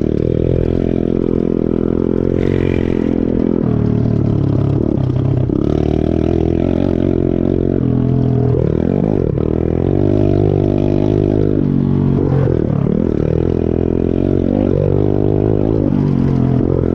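DMX Chinese pit bike's small single-cylinder engine running hard under riding, revving up and down. Its pitch climbs and falls again and again as the throttle is opened and shut, with sharper drops about four, nine, twelve and fifteen seconds in.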